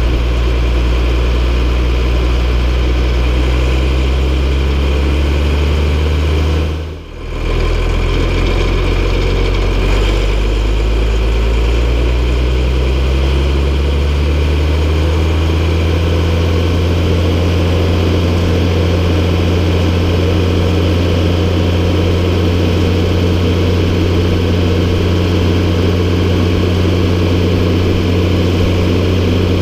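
MB Trac 1800's six-cylinder diesel engine running. Its note sinks and briefly drops away about seven seconds in, then climbs gradually over several seconds and holds steady at higher revs.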